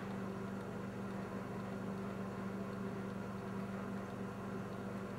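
Steady low electrical mains hum over faint background hiss, with no other events.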